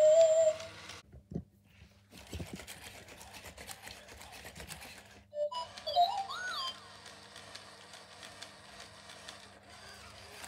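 Electronic beeps and chirps from robot dog toys: a short tone at the start, then a run of quick mechanical clicks, then rising and falling chirps about six seconds in.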